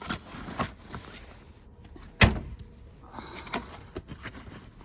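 Light clicks and knocks from handling a Jeep Wrangler TJ's doors or rear, with one sharp thump about two seconds in.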